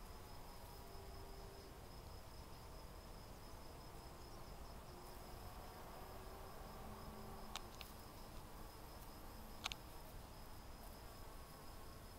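Honey bees buzzing faintly as they forage on eucalyptus blossoms, their hums coming and going at shifting pitches. Under them runs a steady high-pitched tone, and a few sharp clicks come in the second half.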